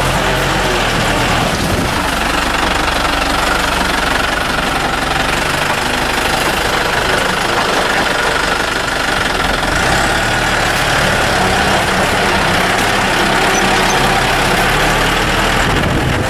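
Off-road vehicle's engine running steadily, heard from inside the cab while driving a rough dirt hill track, over a constant noise of the road and bodywork.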